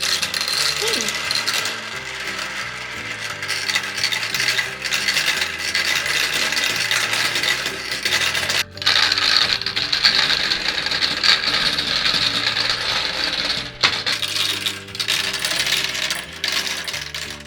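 Gumballs rattling and clattering as they roll down a toy marble run, a busy continuous clatter with two short breaks about 9 and 14 seconds in.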